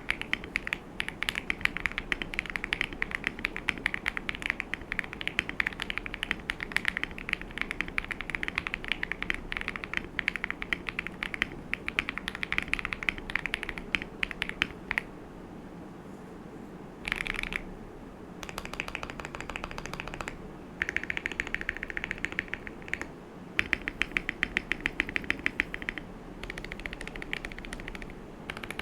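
Fast typing on a modded FEKER JJK84 mechanical keyboard with lubed Akko Cream Blue switches, MA-profile keycaps and foam and tape mods inside the case. Dense clicking runs for about fifteen seconds, stops briefly, then comes back in shorter runs with pauses between them.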